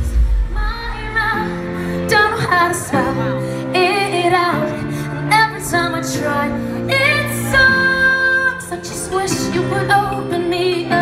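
Female pop singer performing live with a band, her melody over held chords. The deep drum and bass drop away just after the start, leaving a lighter passage.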